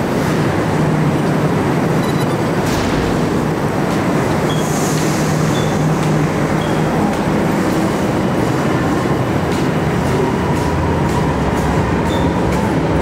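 Milan Metro Line 1 train running at speed, heard from inside the carriage: a steady loud rumble of wheels on rails, with a few brief high squeaks and light clicking in the second half.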